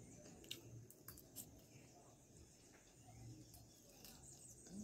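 Faint eating sounds over near silence: a few short, sharp clicks of a metal fork and small mouth sounds as a mouthful of cheese fries is chewed.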